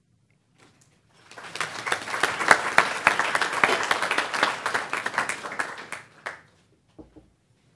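Audience applauding: the clapping starts about a second in, fills out quickly and dies away after about five seconds.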